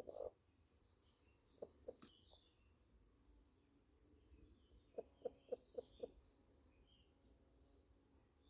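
A hen clucking softly in short runs: two clucks about a second and a half in, then a run of five or six about five seconds in. Small birds chirp faintly in the background.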